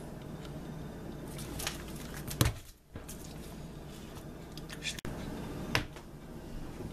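A wet bluegill being handled and shifted on a countertop: a few soft, squishy taps and thumps, the sharpest about two and a half seconds in, over a steady low room hum.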